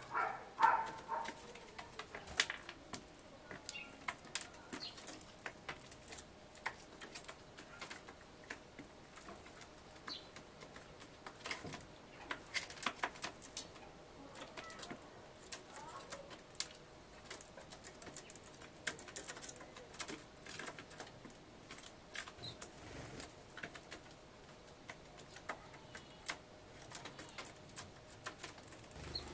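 Oriental turtle dove pecking seed off a wooden bird table: irregular light taps and clicks, coming in quick clusters with pauses between.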